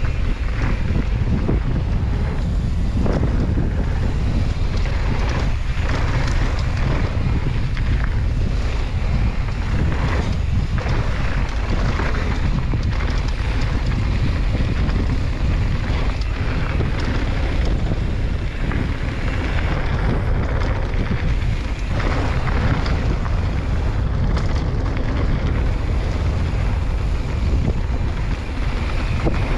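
Loud, steady wind buffeting the camera microphone on a fast mountain-bike descent, a deep rumble with frequent short knocks and rattles from the bike on the rough trail.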